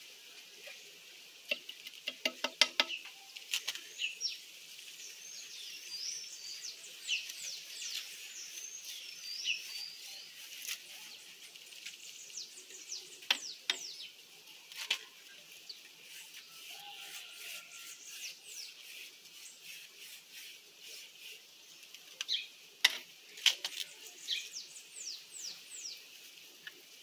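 Birds chirping and calling throughout, many short falling chirps and warbled notes. Scattered sharp clicks and taps, a quick cluster about two seconds in and a louder pair around 23 seconds, stand out above the birdsong.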